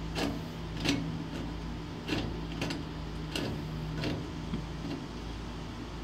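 Metal locknut being turned by hand onto a dryer cord strain relief against the dryer's sheet-metal back panel: irregular small clicks and scrapes, over a steady low hum.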